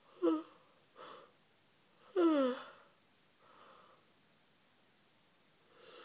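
A woman yawning: a short voiced sigh that falls in pitch about a quarter second in, a breath, then a longer and louder falling yawn sound about two seconds in. Soft breaths follow, and a new inhale swells up near the end.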